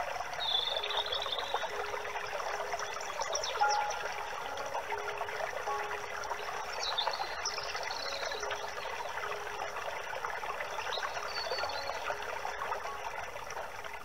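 A steady trickle of running water, like a small stream, with a few short high bird chirps and twitters over it near the start, around the middle and later on. Faint held low notes come and go underneath.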